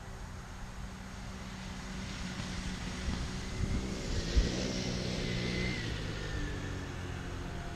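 A motor vehicle passing by: its motor noise grows louder, peaks about four to five seconds in with a single sharp knock, then fades away.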